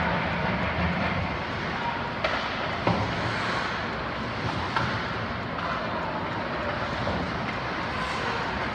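Ice hockey play in a rink: a steady rushing noise with a few sharp clacks of stick and puck, three of them in the middle of the stretch.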